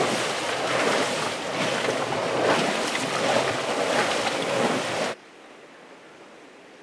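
Boiling hot spring vent (caldeira) churning and venting steam: a loud, surging, rushing noise that cuts off abruptly about five seconds in, leaving only faint outdoor background.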